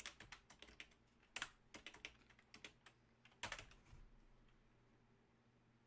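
Computer keyboard being typed on: a quick run of key clicks that stops about four seconds in.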